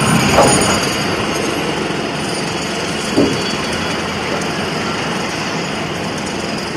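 Semi-automatic welding machine running: a loud, steady mechanical noise, with a short knock about half a second in and another about three seconds in.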